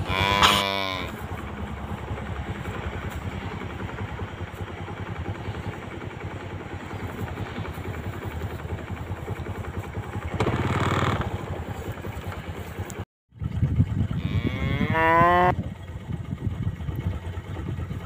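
Zebu cattle mooing: a short moo about half a second in, a fainter drawn-out call around ten seconds in, and a longer moo that rises in pitch around fourteen seconds in, over a steady background noise.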